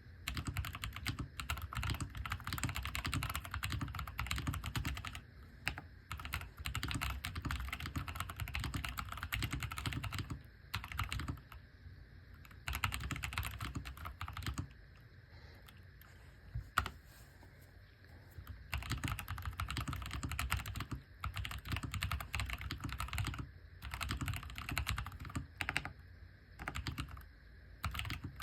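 Typing on an AJAZZ AK680 mechanical keyboard with stock brown tactile switches: rapid runs of keystroke clicks in bursts with short pauses. A quieter, sparser stretch in the middle holds one single sharp keystroke before fast typing resumes.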